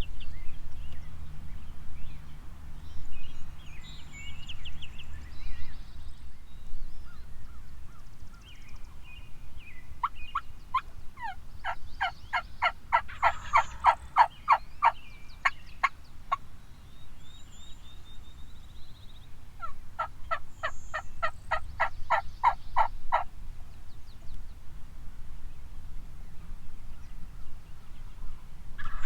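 Wild turkey calling: two long runs of fast, evenly spaced yelps, the first about ten seconds in and the second near twenty seconds, over low wind rumble, with a few faint small-bird chirps.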